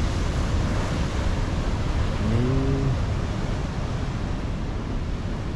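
Surf from a rough sea washing onto the beach, with wind rumbling on the microphone. A short hum from a voice about halfway through.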